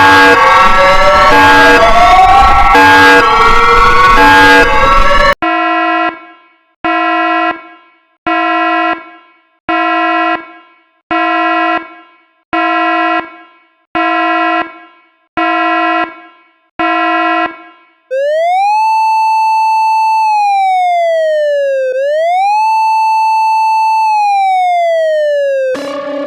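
A run of South Korean emergency alert alarms with hard cuts between them. First a loud, dense alarm of siren glides and beeps. Then a chord-like beep repeating nine times about a second and a half apart, each fading out, and then an electronic siren tone that rises, holds and falls, twice.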